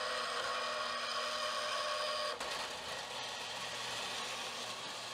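Small vertical band saw cutting a steel plate, the blade running with a steady whine of several pitched tones. About two seconds in the tones drop out suddenly and it runs on as a steadier, rougher noise.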